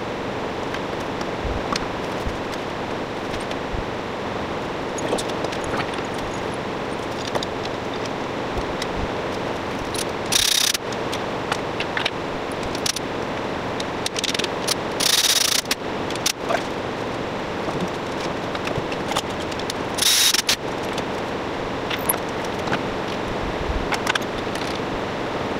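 Hand tools clicking and clinking on engine-mount bolts over a steady shop hum, with three short hissing bursts about five seconds apart.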